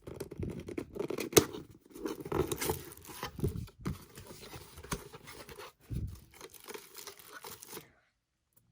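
Lamp packaging being unwrapped by hand: crinkling and tearing of the wrapping with scattered sharp knocks, cutting off suddenly near the end.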